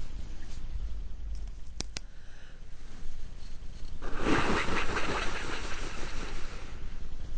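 A person with a head cold blowing their nose into a tissue: one long, forceful, congested blow starting about four seconds in and lasting about three seconds. Two short clicks come shortly before it.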